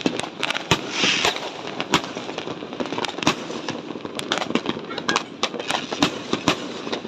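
Fireworks and firecrackers going off in rapid, irregular succession: many sharp bangs and pops, some overlapping, with a brief hiss about a second in.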